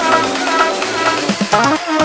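Electronic dance-style background music: a short synth figure repeating about twice a second over a steady beat.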